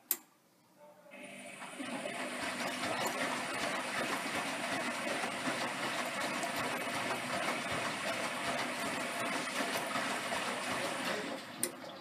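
Zanussi Electrolux 1200 washing machine taking in water: a sharp click, then a steady rush of water for about ten seconds that stops, followed by another click near the end.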